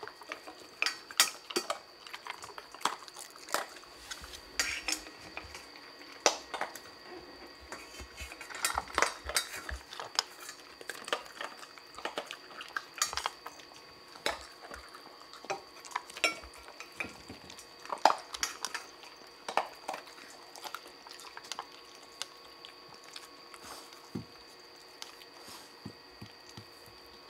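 Cat eating dry kibble from a stainless-steel bowl: irregular clinks and rattles of kibble and teeth against the metal. The clinks come thick and fast at first and thin out in the last few seconds.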